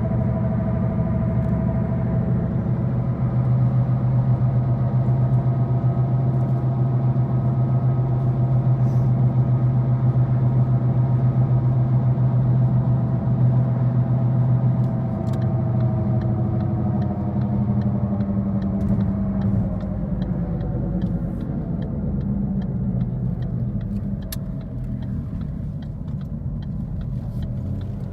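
Loud droning hum of a worn left-front wheel bearing on a 2013 Ford Focus heard inside the cabin over road noise; its pitch slowly sinks and it fades over the second half as road speed drops.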